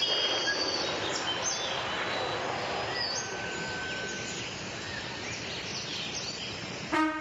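Nature ambience from a wildlife documentary soundtrack: a steady hiss with birds chirping now and then. Brass music begins right at the end.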